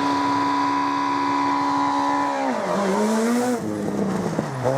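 Rally car engine running flat out at high, steady revs for about two and a half seconds. The note then drops as the car lifts off, picks up briefly, and falls again.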